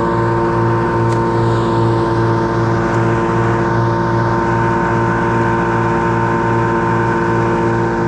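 An engine running steadily at constant speed, with a low beat about two or three times a second.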